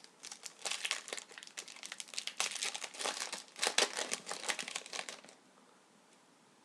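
Crinkling of a hockey card pack's wrapper being handled and torn open, a dense crackle that stops a little over five seconds in.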